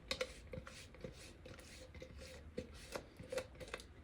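A spoon scraping and tapping thick spice paste out of a blender jar: a dozen or so short, irregular scrapes and clicks.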